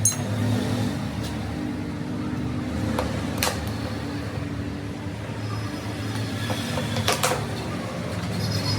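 Workshop noise: a steady low hum with a few sharp knocks scattered through it, the loudest two close together about seven seconds in.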